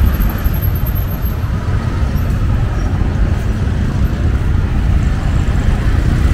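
Steady street traffic noise with a constant low rumble, from cars and tuk-tuks moving along the road.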